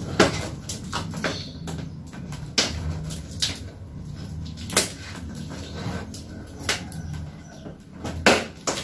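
Knocks and scrapes of a taped board lid being handled and pressed down on a cardboard shipping box, about eight separate knocks over a low steady hum, with two close together near the end.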